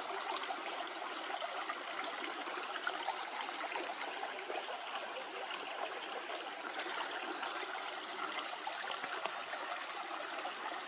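A stream running, a steady, even rush and trickle of flowing water.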